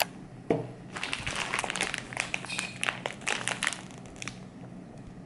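Thin plastic bag of bagels being handled, crinkling and crackling in irregular bursts that thin out towards the end.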